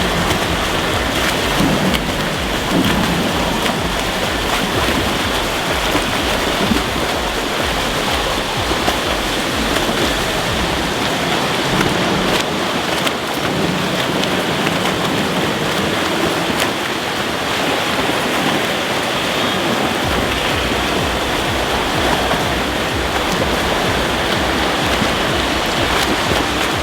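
Steady splashing and churning of water from swimmers swimming laps in a pool.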